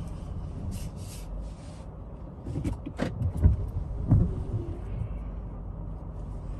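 Steady low rumble of a car idling or creeping slowly, heard from inside the cabin, with a few soft knocks and rubs near the middle.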